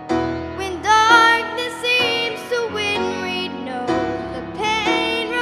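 A girl singing a slow solo into a microphone, with piano accompaniment.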